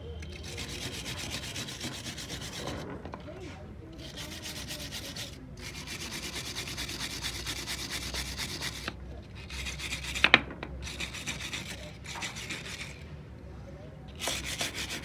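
A hand brush scrubbing the soapy engine casing of a Honda CD 70 motorcycle, in bursts of rapid back-and-forth strokes with short pauses between them. There is a sharp knock, the brush hitting the engine, about ten seconds in.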